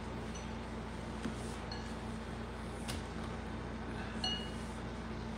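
A metal spoon clinks lightly a few times against a glass soup bowl, the clearest clinks about three and four seconds in, the last ringing briefly, over a steady low hum.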